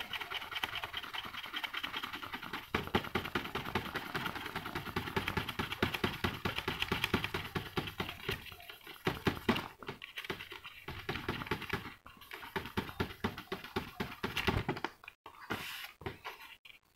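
3M sponge sanding pad rubbed in quick, short back-and-forth strokes over the hardened 2K clear coat of a model car body, scratching steadily as it sands the grit bumps flat. The strokes thin out and stop and start near the end.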